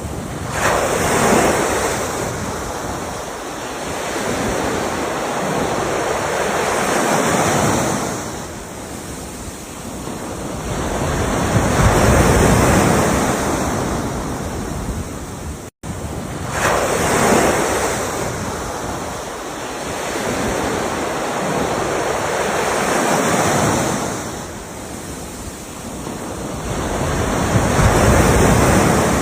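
Ocean waves breaking and washing up a shore, swelling and ebbing every few seconds. The recording loops, with a brief cut in the sound about halfway through before the same sequence of waves starts again.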